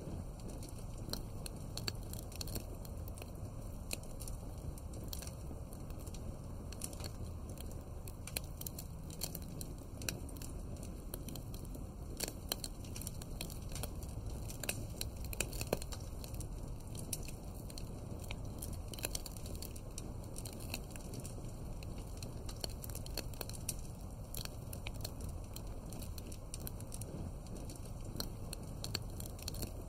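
Wood fire crackling, with irregular sharp clicks and snaps over a steady low rumble.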